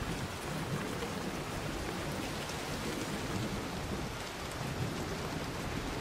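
Steady rain falling outdoors, an even hiss with a low rumble underneath.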